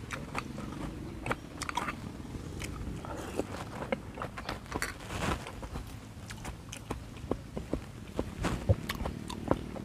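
Close-miked wet chewing and lip smacking of a mouthful of raw beef liver, many short clicks. About five seconds in there is a brief slurp from a spoon at the lips.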